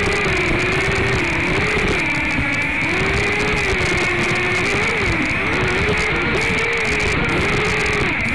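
DM007 quadcopter's motors and propellers whining, heard through its onboard camera. The pitch keeps rising and falling as the throttle changes in flight.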